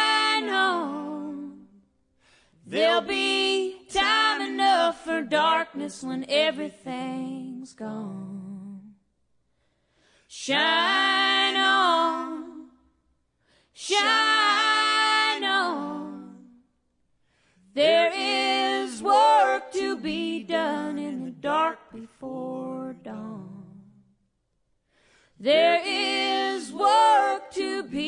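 A woman singing unaccompanied, in phrases broken by short pauses.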